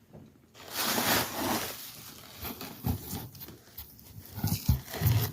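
Packing material rustling and scraping, followed by a few dull knocks, as a boxed siren is handled and unpacked.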